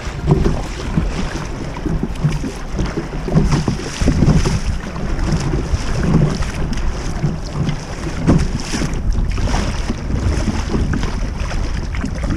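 Kayak moving through a choppy sea: waves slapping and splashing against the hull in irregular surges, with wind rumbling on the microphone.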